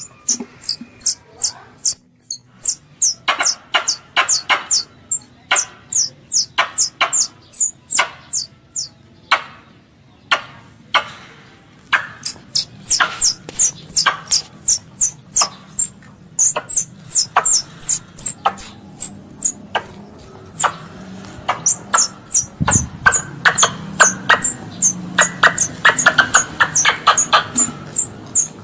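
Squirrel lure call: a rapid series of sharp, high chirps, each falling in pitch, repeated about three or four times a second in runs with brief pauses. A low background hum grows louder in the second half.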